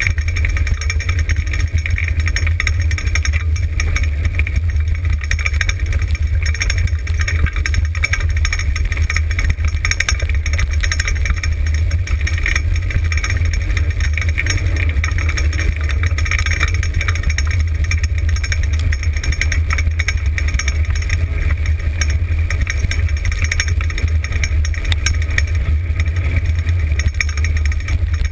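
Dryland dog-sled rig rolling fast over a dirt trail: a steady rumble of wind on the rig-mounted camera's microphone, with the rig rattling over the gravel.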